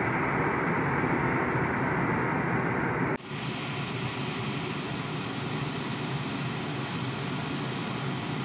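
Steady road and engine noise heard from inside a car. About three seconds in it cuts abruptly to a slightly quieter, similar steady in-car noise.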